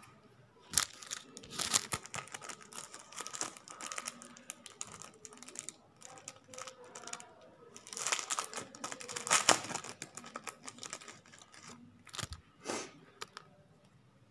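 Irregular crinkling and rustling of something being handled, with sharp clicks, in three bursts: about a second in, around eight to ten seconds in, and a short one near the end.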